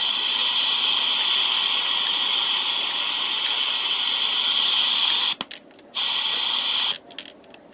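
Realistic DX-440 shortwave radio hissing loud static from its speaker, now powering up after its power-switch solder joints were redone. The hiss cuts out suddenly about five seconds in, comes back for about a second, then cuts out again near the end.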